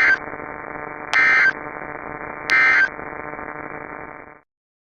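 Emergency Alert System end-of-message code: three short, loud digital data bursts about a second apart, over steady radio static, marking the end of the alert. The static cuts off suddenly near the end.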